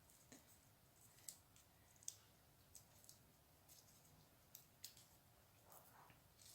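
Near silence broken by faint, irregular crinkly clicks of a crochet hook working raffia paper yarn around a metal bag clasp frame.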